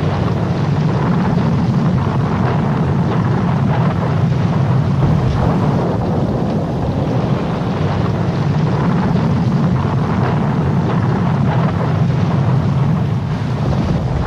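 Steady low rumbling wind noise buffeting the microphone, with no distinct events.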